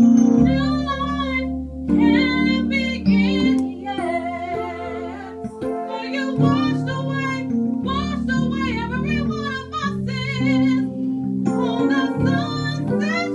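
Music: a voice singing with heavy vibrato in phrases of a second or two, over sustained accompaniment chords.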